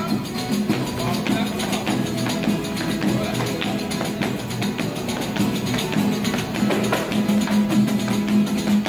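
Folia de Reis ensemble playing: fiddles bowing a melody over strummed violas and acoustic guitar, with a slung drum beaten with sticks keeping a quick, steady beat.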